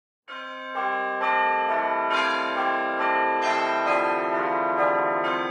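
Intro music of bell-like chimes: notes enter one after another every half second to a second and ring on, piling up into a sustained chord.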